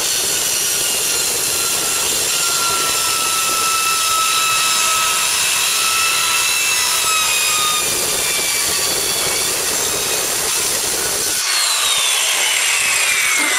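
Skil circular saw cutting through aluminum sheet, a loud steady rasp with a high metallic whine. About eleven and a half seconds in the cut ends and the blade spins down with a falling whine.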